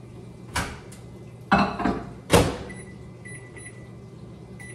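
Microwave oven being loaded and started: a knock, a clatter and a sharp door shut in the first two and a half seconds, then a run of high electronic beeps from its keypad.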